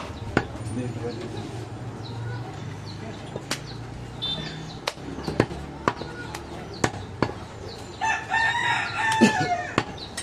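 Large butcher's knife chopping goat meat on a wooden log block: irregular sharp knocks, roughly one a second. About eight seconds in, a long, loud pitched call lasting a couple of seconds rises over the chopping.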